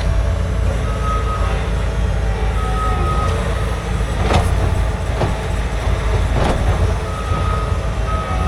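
Heavy vehicle engine running with a steady low rumble while a reversing alarm beeps in a few short runs. Three sharp knocks come in the middle.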